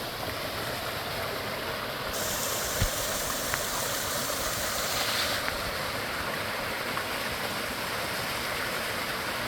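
Small mountain stream running into a shallow pool: a steady rush of water, with a brighter hiss from about two seconds in to about five and a half seconds, and one faint knock near three seconds.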